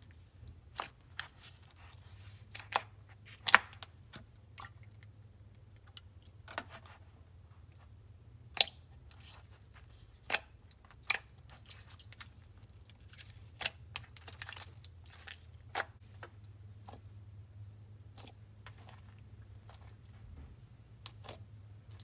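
Hands squishing and stretching a smooth, stretchy clay slime, making irregular sharp sticky pops and clicks, a few of them much louder, over a faint low hum.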